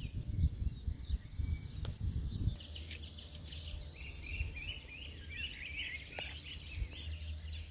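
Faint outdoor ambience: a low rumble on the microphone for the first couple of seconds, then small birds chirping repeatedly in the background over a low steady hum.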